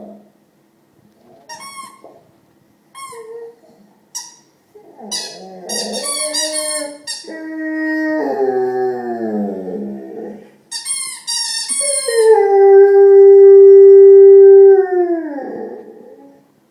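Rottweiler making weird howl-like vocal noises: a few short high whines, then longer wavering calls that slide down in pitch, ending in one long, steady howl, the loudest, that drops away at the end.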